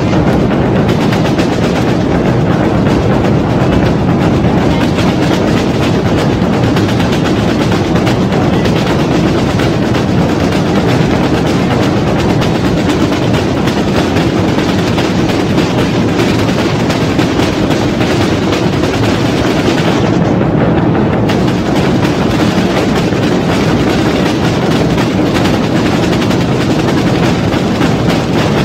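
A corps of bombos (large bass drums) and snare drums playing together in loud, dense, rapid beating. The snare rattle drops away for about a second around two-thirds of the way through.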